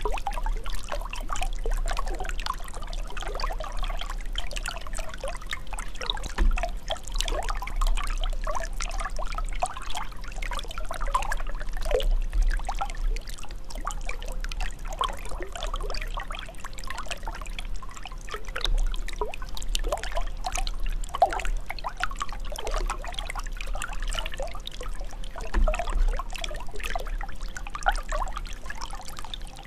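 Running water trickling and bubbling steadily, with many small gurgles over a low rumble.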